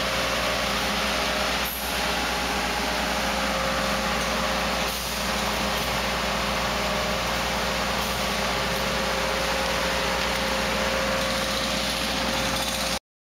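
Engine of a rail-mounted track maintenance machine running steadily with a constant whine and hiss, dipping briefly twice. The sound cuts off suddenly near the end.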